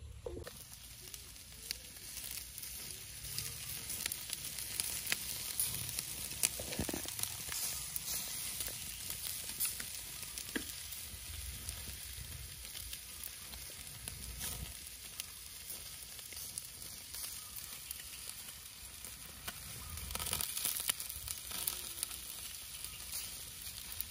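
Meat-and-vegetable skewers sizzling over a charcoal grill: a steady hiss with scattered crackles and pops.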